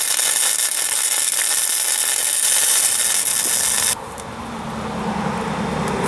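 Wire-feed welder's arc crackling and hissing steadily as a bead is run on the steel frame patch, cutting off suddenly about four seconds in. A quieter low hum then rises.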